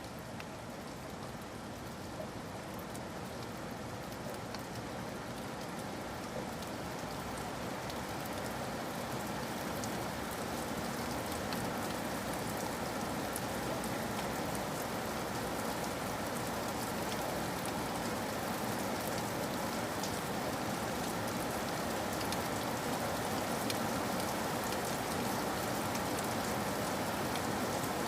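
Steady rain falling in a forest: a continuous hiss with scattered drops ticking, slowly growing louder.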